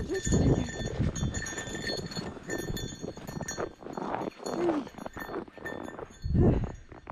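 Gusts of wind buffeting the microphone in surges, the strongest near the end, with faint steady high tones coming and going underneath.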